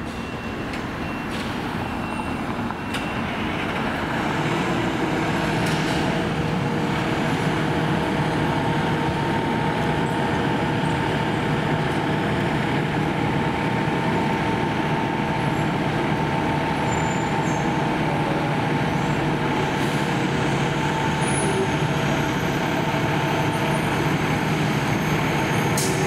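Fire engine's diesel running at idle, a steady hum that grows louder over the first few seconds and then holds even.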